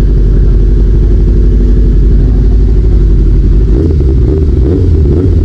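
Honda CB400 Super Four inline-four engine running close up, idling and then revved up about four seconds in. The owner describes it as rough and hesitating when the throttle is snapped open, like it is getting air, and suspects the carburettors need synchronising.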